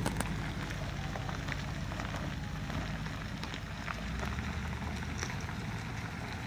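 Steady low rumble of emergency vehicles idling, under an even crackling hiss with faint scattered ticks.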